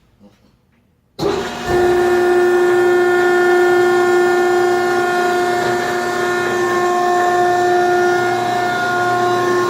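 The 15 hp electric motor and hydraulic pump of a C and M Co. 60 HD compactor-baler switching on about a second in, then running steadily with a loud, even whine.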